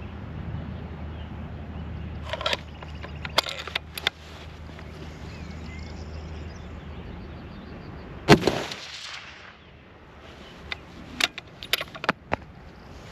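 A single shot from a Tikka T3X TAC A1 bolt-action rifle in .308 Winchester with a muzzle brake, sharp and loud with a short ringing tail, about eight seconds in. Before and after it come several light sharp clicks and knocks.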